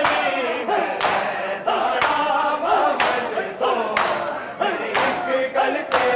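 A crowd of men chanting a mourning lament (nauha) in unison, with sharp slaps of bare-handed chest-beating (matam) landing together about once a second.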